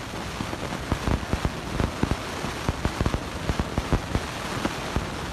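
Newly lit blower-fed propane gas forge burning: a steady rush of flame and air with irregular crackling pops, several a second.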